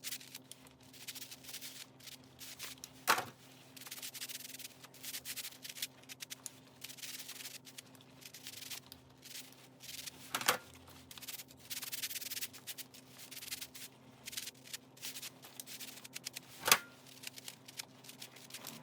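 Irregular rubbing and scraping strokes, with three sharp knocks several seconds apart, over a faint steady hum.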